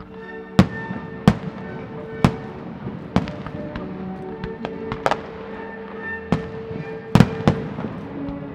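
Aerial firework shells bursting in a string of about eight sharp bangs, spaced irregularly, over steady music from the pyromusical soundtrack.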